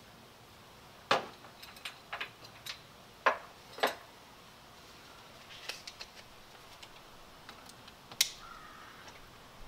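Scattered sharp knocks and small clicks of hand tools and a small metal roof bracket being handled and tapped into place, the loudest about a second in, twice around three to four seconds in, and near the end.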